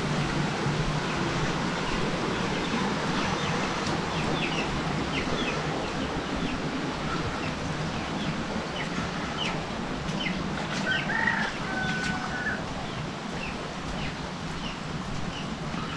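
Chickens clucking and chirping over the steady hiss of rain, with many short high chirps and one longer pitched call, held for about a second, a little past the middle.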